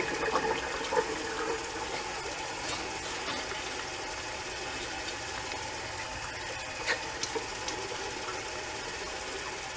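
Bathroom tap running steadily as cold water is splashed onto the face to rinse off shaving lather, with splashing mostly in the first second or so. A single sharp knock about seven seconds in.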